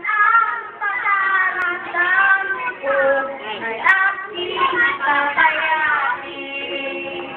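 Children's high voices singing.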